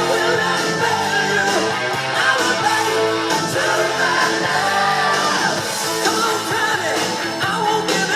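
A song with a singing voice over a band, played back from a vinyl record on a Technics SL-QD22 turntable.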